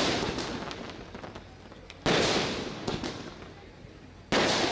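Loud sharp bangs about every two seconds, two of them about two and four seconds in, each dying away over a second or more.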